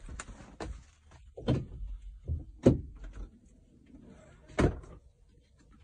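A series of knocks and thumps inside a van's small interior: three louder knocks spread over a few seconds, with softer bumps between them.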